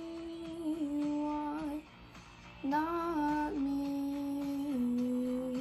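A woman's voice holding long drawn-out notes over an instrumental backing track, in two sustained phrases with a short break about two seconds in.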